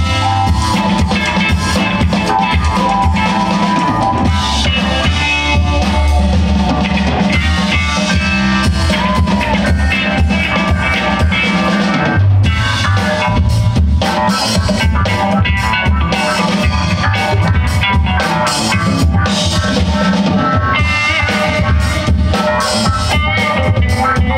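Live band playing amplified funk-style music: drum kit and a heavy bass line with electric guitar, keyboard and djembe hand drum.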